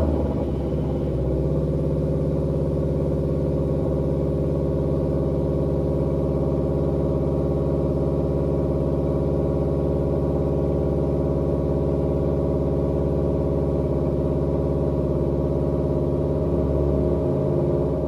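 Subaru WRX's turbocharged flat-four engine idling steadily on a cold start, heard at the quad-tip exhaust.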